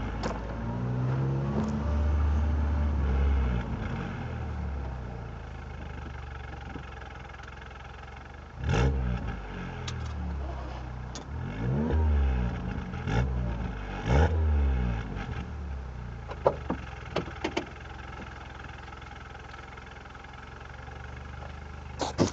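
Mini Cooper R56's 88 kW 1.6-litre four-cylinder through an aftermarket FSW exhaust system from the catalytic converter back, heard from the open boot. It idles and is revved: a swell early on, then five short throttle blips that rise and fall in pitch, followed by a few sharp crackles. Near the end come knocks as the camera is handled.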